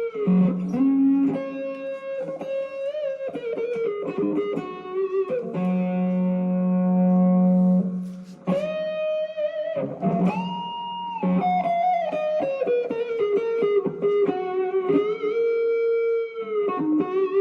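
Electric guitar (Epiphone SG Special) played through a Vox MV50AC amp into a 10-inch speaker cabinet: a melodic lead line of single notes, many held with vibrato, with a low note held for about two seconds midway.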